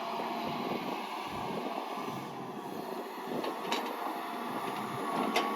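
John Deere 160G LC excavator travelling on its steel tracks, the track chains clattering and squeaking over the running diesel, with a few sharp clicks and clanks, the strongest near the end.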